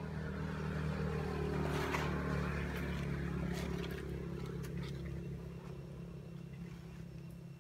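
A vehicle engine's steady low hum that grows louder in the first couple of seconds, then fades away over the last few seconds.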